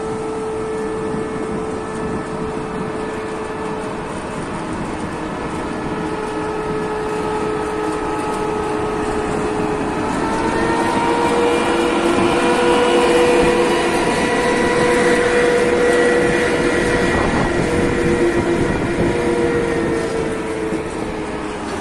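EP2K electric locomotive moving off with a passenger train: a steady whine that rises in pitch and grows louder about ten seconds in as it gathers speed. The passenger coaches then roll past.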